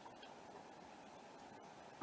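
Near silence: faint steady background hiss with a few faint ticks.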